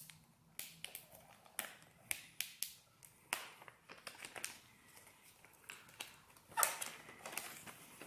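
Packaging being opened by hand: irregular crinkling of plastic wrap and sharp taps and clicks of cardboard, with a louder scraping rustle near the end.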